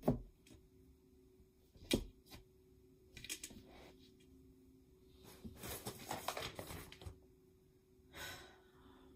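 Flat-pack laminated bookshelf panels being handled during assembly: sharp knocks right at the start and about two seconds in, then scattered clattering and handling noise. Near the end comes a short rustle of the paper instruction sheet being picked up.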